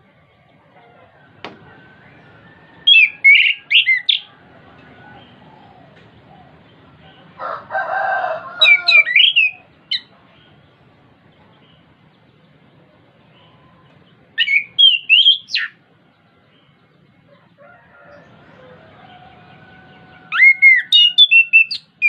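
Chestnut-capped thrush singing in short loud bursts of quick, sweeping whistled notes, four phrases about five to six seconds apart. Just before the second phrase comes a lower, harsher call from another bird.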